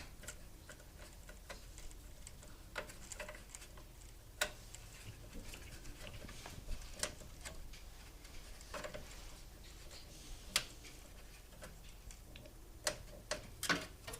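Scattered light metallic clicks and ticks, at irregular intervals, of a screwdriver driving screws to fasten a motherboard into a computer case, over a faint steady hum.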